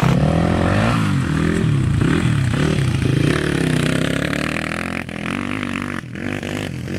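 Dirt bike engine revving up and down again and again as the rider works the throttle over a rough course, then growing fainter as the bike moves away near the end.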